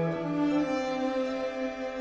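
Slow, sad background music with long held string notes that shift in pitch every second or so.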